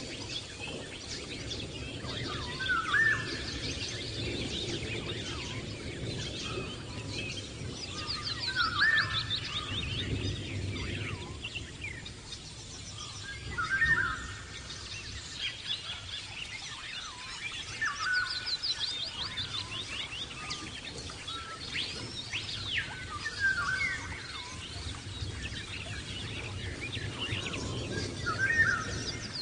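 European goldfinch of the large 'Major' type singing: a twittering phrase recurs about every five seconds, each with an upward-sweeping note and fast, high trills, over a steady low hum.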